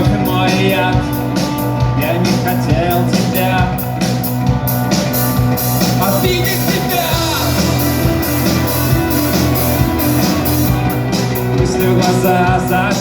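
Instrumental intro of a Russian rock song: guitar and drums playing with a steady beat.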